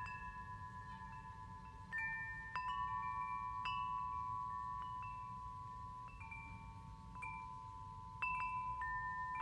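Large metal-tube wind chimes sounding now and then: clear separate notes that ring on and overlap one another, with stronger strikes about two, three and a half and eight seconds in.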